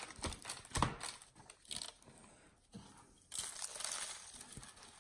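Gloved hands patting and pressing a coarse dry rub onto a raw whole pork leg on a wire rack, with loose rub scattering onto the parchment-lined sheet pan. A few soft pats come near the start, then a longer spell of rubbing and rustling about three seconds in.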